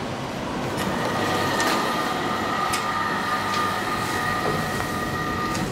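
1974 DEVE hydraulic elevator running after a car button is pressed: a steady rumble with a high whine that comes in about a second in and cuts off suddenly near the end, as the car stops. A few faint clicks along the way.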